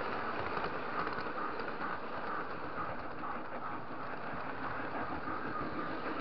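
Lionel model train running steadily along its track, picked up by a camera riding on the train: an even, continuous rumble and whir of wheels on rail and the electric motor.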